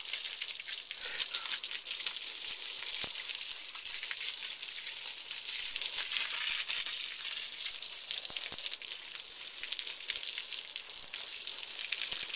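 Water spraying from a garden hose onto a horse's wet coat and running off onto muddy ground: a steady hiss sprinkled with small splashes.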